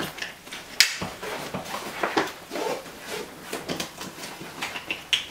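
Nylon backpack straps and fabric rustling as a rolled bag is strapped onto the top of a backpack by hand, with a string of sharp clicks and knocks, the loudest about a second in.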